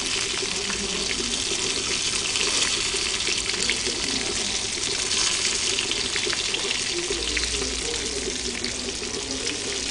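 Fish sticks sizzling as they shallow-fry in hot oil in a pan: a steady hiss with small crackles.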